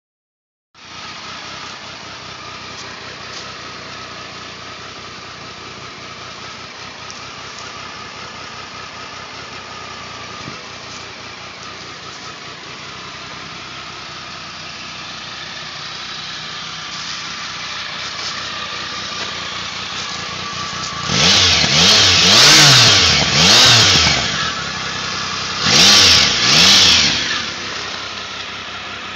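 Triumph Tiger 955i's three-cylinder engine idling steadily. About 21 seconds in it is revved in several short throttle blips, each rising and falling in pitch, then settles back to idle.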